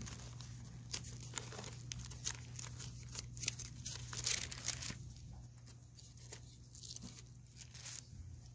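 Thin Bible pages being leafed through: a run of soft paper rustles and flicks, busiest in the first five seconds and sparser after, over a steady low hum.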